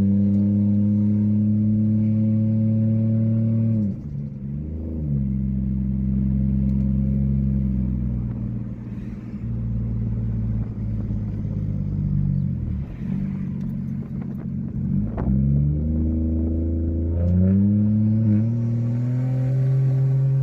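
Car engine running at steady revs with a droning note. The note drops about four seconds in, wavers through the middle, and climbs again near the end as the revs change.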